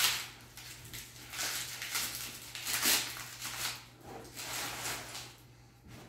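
Packing paper rustling and crinkling in repeated bursts as it is pulled off a rifle bolt by hand, dying down near the end.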